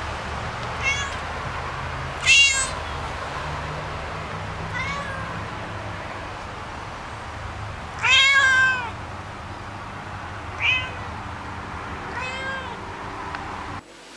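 Domestic cat meowing repeatedly, about six meows, the loudest a long one about eight seconds in. A steady low hum runs underneath and cuts off just before the end.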